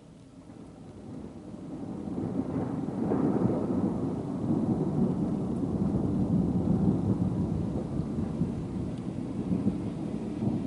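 Thunder following a nearby lightning flash: a low rolling rumble that swells over the first couple of seconds and keeps rumbling for several seconds.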